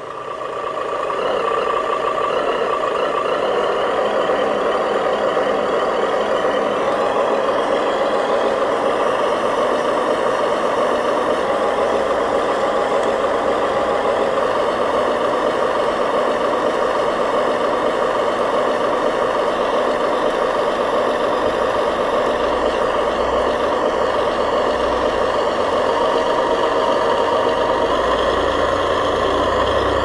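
Diesel truck engine sound from an RC dump truck, running steadily, with a deeper rumble coming in about two-thirds of the way through and again near the end.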